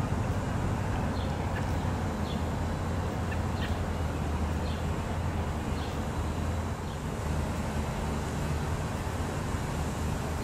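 Steady low mechanical drone that holds unchanged throughout. Over it, a bird gives short high chirps about once a second in the first half.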